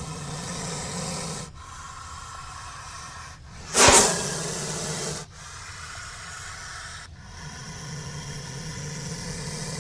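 Indian cobra (Naja naja) hissing: a series of long hisses, with a sudden, much louder sharp hiss about four seconds in.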